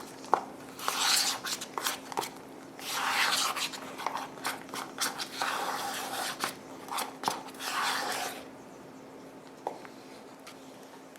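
Thick spackle being scooped and scraped with a tool against its container: four scraping strokes of about a second each, with light clicks and knocks between them. It goes quiet for the last few seconds.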